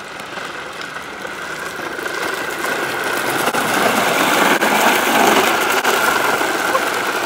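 Hard plastic wheels of a child's ride-on trike rolling and skidding sideways on wet asphalt: a steady grinding rumble that grows louder to about five seconds in, then eases slightly.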